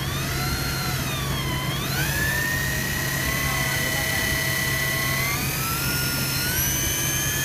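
Electric deep-drop fishing reel's motor whining as it winds line up from deep water. Its pitch wavers up and down for about the first two seconds, holds steady, then steps up twice near the end. A steady low hum runs underneath.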